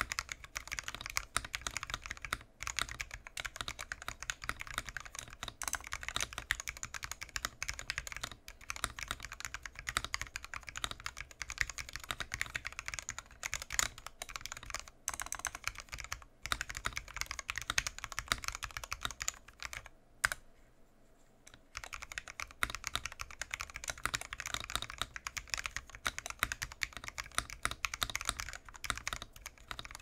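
Continuous fast typing on a wooden-cased TADA68 mechanical keyboard with lubed Gateron Ink Black linear switches on a steel plate, recorded close up. It is a rapid run of keystrokes, with a pause of about two seconds around two-thirds of the way through.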